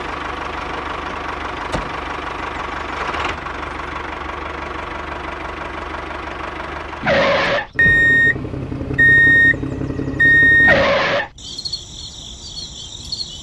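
Engine running steadily for about seven seconds. It is followed by a few loud swishes with three short, high beeps between them, then a high, warbling, cricket-like chirping near the end.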